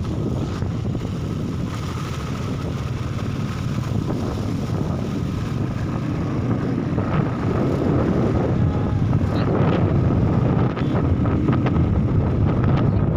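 Motorcycle riding along a road: wind buffeting the microphone over the steady sound of the engine running.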